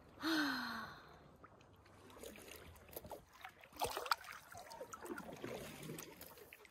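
Kayak paddle strokes dipping and splashing beside an inflatable kayak, with a cluster of sharper splashes and knocks about four seconds in. Just after the start, a brief vocal sound falls in pitch and is the loudest thing heard.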